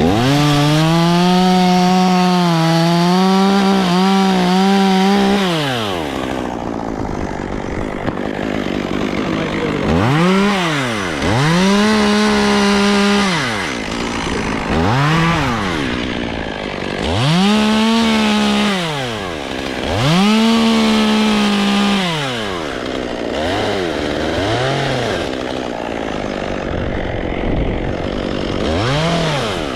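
Chainsaw throttled up and held for about six seconds at the start, its pitch wavering under load as it cuts into hollow tulip poplar wood. It then revs in a string of shorter bursts every couple of seconds, dropping back to idle between them.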